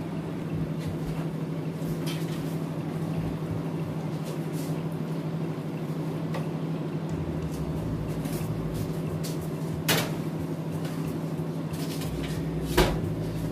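A roasting tin being loaded into an open built-in oven: two short knocks, one about ten seconds in and one near the end, over a steady low hum.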